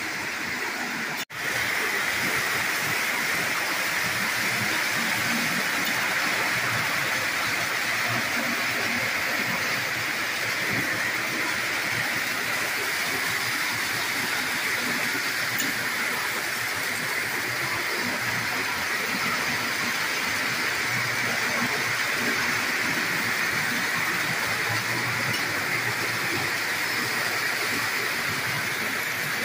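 Several Lionel O-gauge model trains running on the layout: a steady whir and rumble of motors and wheels on the rails. The sound drops out briefly about a second in.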